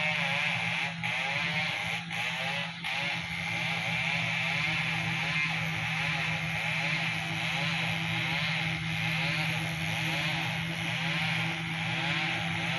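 Caterpillar motor grader's diesel engine running steadily as the grader works a gravel road.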